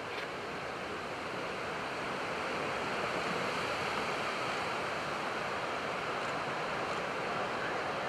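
Heavy surf from giant breaking waves: a steady, even wash of noise.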